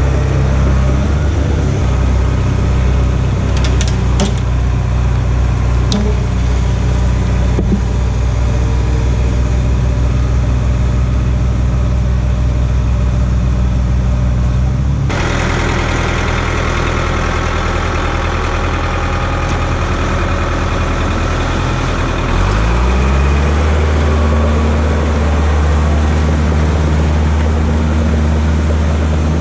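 Diesel engine of a skid steer running steadily, with a few sharp clanks in the first several seconds. About halfway through the sound changes abruptly to another engine, which revs up a few seconds later and holds at higher speed.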